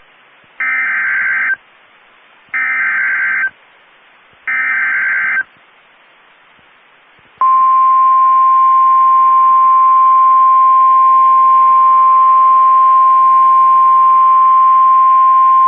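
NOAA Weather Radio Emergency Alert System activation. Three one-second bursts of the SAME digital header data, about two seconds apart, are followed about seven seconds in by the long, steady, single-pitch Weather Radio warning alert tone. Together they signal that a warning, here a severe thunderstorm warning, is being broadcast.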